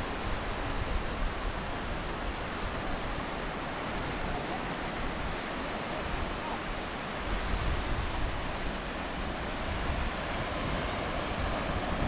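Steady wash of small surf on a sandy beach, with wind gusting on the microphone now and then, most strongly about seven to nine seconds in.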